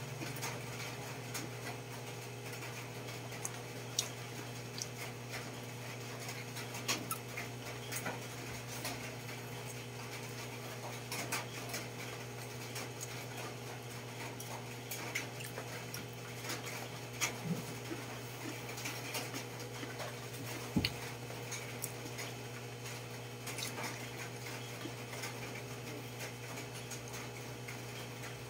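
Close-up eating sounds of a person eating by hand: chewing and lip smacking, with scattered small clicks of fingers and food on a plate and one sharper click near the end. A steady low hum runs underneath.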